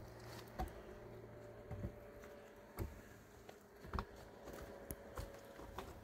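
A wooden log being handled and set onto a cinder-block wall: about half a dozen light knocks and scrapes spread over a few seconds.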